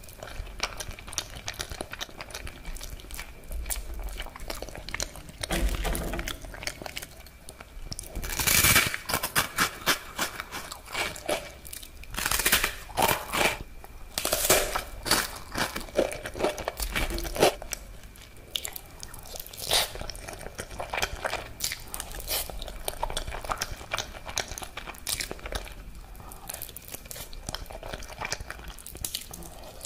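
Close-miked eating: chewing creamy spaghetti and crunching bites of toasted bread, a dense run of crisp crunches loudest through the middle stretch.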